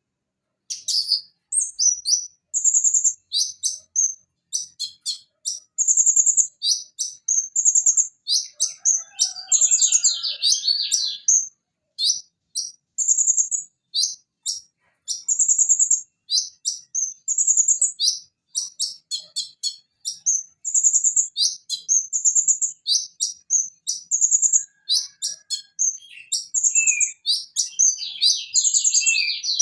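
Purple-throated sunbird (konin) singing a fast run of short, high-pitched chirps and trills, broken by brief pauses. The song starts just under a second in.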